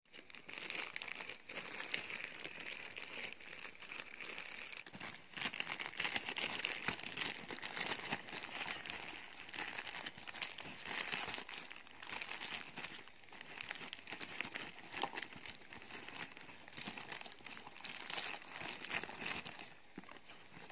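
Packaging crinkling and rustling as a parcel is unboxed by hand, with small clicks and handling noises throughout.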